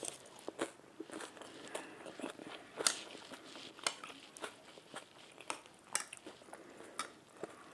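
Close-up eating sounds: chewing with a run of small, sharp clicks and crunches, and metal cutlery scraping and tapping on a plate.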